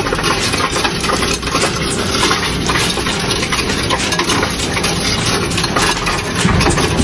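Coinstar coin-counting machine taking in a tray of loose coins: a dense, continuous clatter of coins sliding into the slot and tumbling through the machine, over the steady running of its motor.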